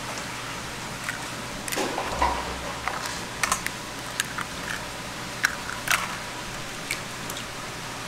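Eggs being cracked open by hand over a stainless steel bowl: irregular sharp clicks and cracks of eggshell, a few each second, over a steady kitchen hiss.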